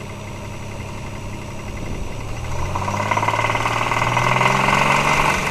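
Toyota 2JZ-GE inline-six idling, then revved up about two seconds in and held high before easing off near the end. The owner is asking what a knock from this engine could be.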